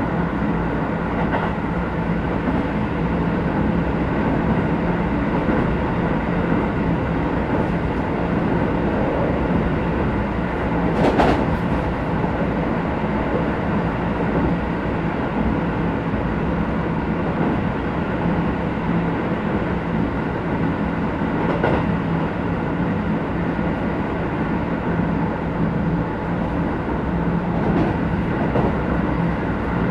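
Interior running sound of a Keisei 3050 series electric train car with a Toyo IGBT-VVVF inverter, travelling along the line: a steady rumble of wheels on rail with an even motor and inverter hum. A few sharp clicks cut through about a third of the way in, two-thirds of the way in, and near the end.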